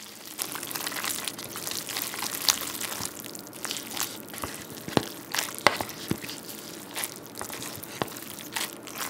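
Wooden chopsticks stirring sauce and powder through cream carbonara buldak instant noodles in a paper cup: a continuous mixing noise with many scattered sharp clicks.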